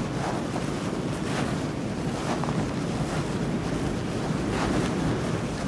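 Wind blowing steadily, an even rushing noise.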